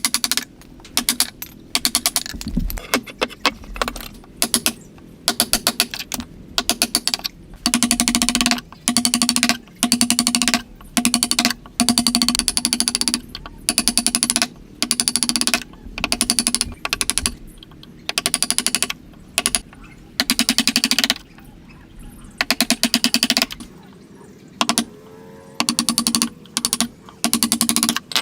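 A hand tool working wood in repeated strokes, about one a second, each stroke a burst of rapid ticking with a hollow ring from the wood.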